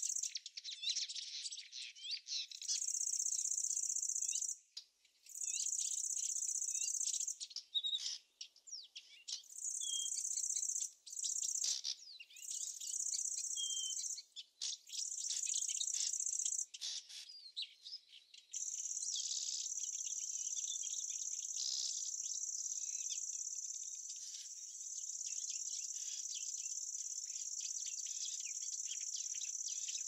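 An insect trilling at a high pitch, first in bursts of about two seconds with short gaps, then unbroken from a little past halfway, while birds chirp throughout.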